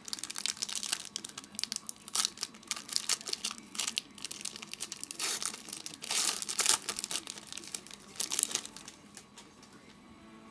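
Foil trading-card pack wrapper being torn open and crinkled by hand, a run of crackling rustles. It is loudest about halfway through and dies down near the end.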